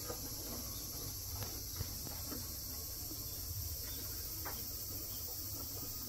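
Steady high-pitched insect chorus, with a few faint ticks.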